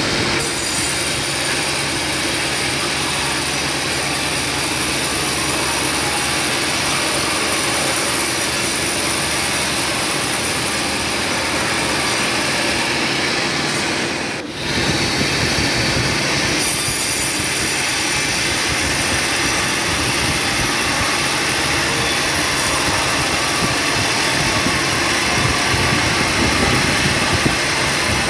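A sawmill bandsaw ripping a slab from a sonokeling (Indonesian rosewood) log carried on a rail-mounted carriage. The blade, drive motor and carriage make a loud, steady run of machine noise that briefly dips about halfway through.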